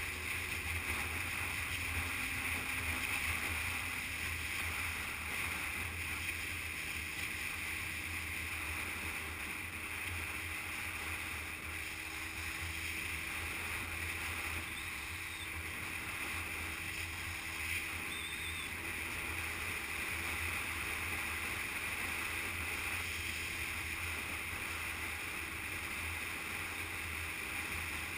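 Motorcycle riding at steady road speed: wind rushing over the handlebar-mounted camera, with the motorcycle's engine running steadily underneath.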